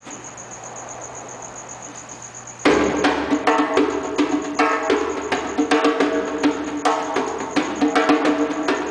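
Djembe played by hand, starting suddenly under three seconds in: a quick, dense run of sharp strikes with the drum's tones ringing beneath them.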